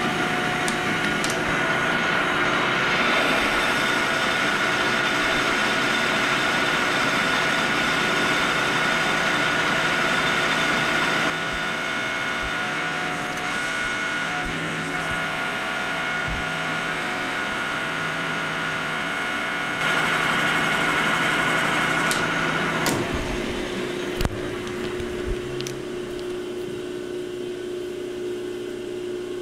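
Metal lathe taking a turning pass on an O1 tool-steel bar: a steady motor and gear whine mixed with cutting noise. About 23 seconds in, the cutting sound drops away, leaving a quieter steady hum with a few clicks and knocks as the spindle stops.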